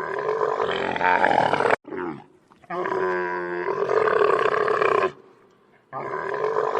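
Big cat roaring: several separate roars in a row, each starting and ending abruptly.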